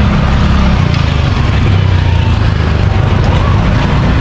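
Loud, steady low rumble of street traffic and running engines.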